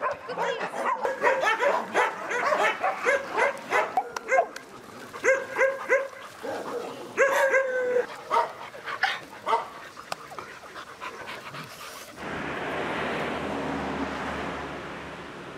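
A group of mixed-breed dogs barking and yipping in quick, overlapping calls, with some whining. About twelve seconds in this cuts off suddenly to a steady background hum.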